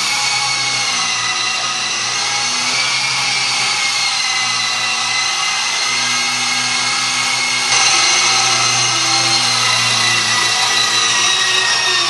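FMA Direct Dragonfly 5 electric RC helicopter flying: a steady, high motor-and-rotor whine, its pitch sagging slightly near the end.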